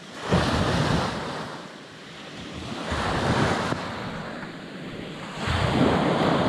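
Small waves breaking and washing up a pebble beach, surging three times about every two and a half seconds, with some wind on the microphone.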